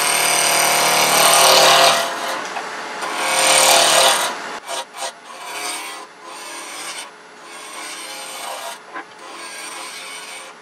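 A gouge cuts a wooden screwdriver-handle blank spinning on a wood lathe, rounding it down over the lathe's steady hum. The cutting is loudest for the first two seconds and again around three to four seconds in, then breaks into lighter, shorter cuts.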